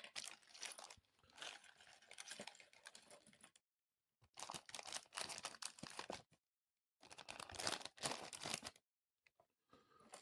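Packaging of electronic kit parts crinkling and rustling as they are unwrapped and handled, in three stretches with brief pauses between.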